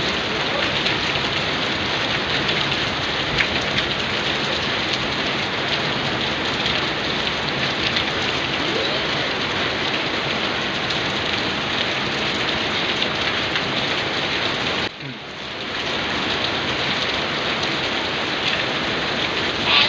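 Steady, heavy rain falling, a dense even hiss of drops. The sound drops away for a moment about fifteen seconds in, then returns.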